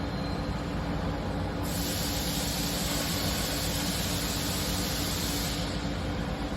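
Steady machine hum with a loud, even hiss that starts about one and a half seconds in and stops about four seconds later.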